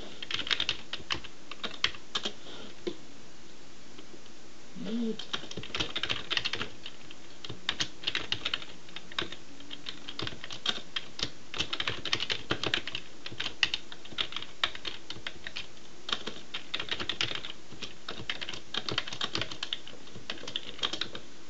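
Computer keyboard typing: runs of rapid keystrokes with short pauses between them, as code is entered into a text editor.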